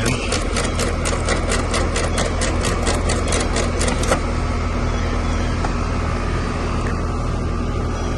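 Rheem condensing unit running with a steady hum during a pump-down, its refrigerant being pulled back into the condenser. Over it comes a rapid even clicking, about five a second, that stops about four seconds in.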